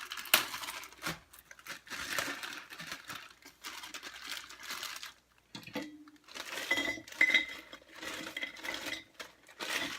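Frozen pearl onions tipped from a bag into a slow cooker crock, the hard frozen pieces clattering and rattling against the crock and each other, with a short pause about halfway through.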